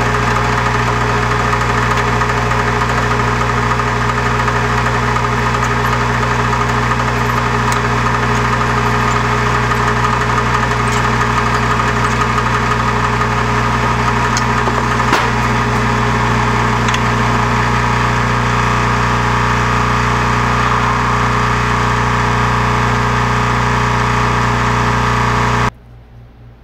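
Small electric rotary tool with a flexible-shaft handpiece running steadily at constant speed, with a single brief click about halfway through. The sound cuts off suddenly near the end.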